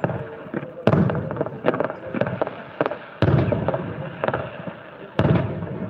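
Fireworks display: aerial shells bursting in three loud booms, about a second in, just past three seconds and just past five seconds. Each boom fades away, with scattered smaller pops and crackles between them.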